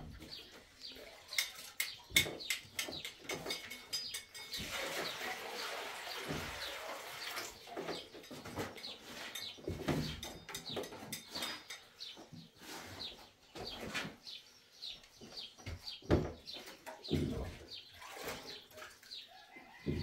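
Plastering trowel scraping and tapping as plaster is spread over a ceiling: scattered knocks and clicks, with a longer scrape about five seconds in. Birds chirp in the background.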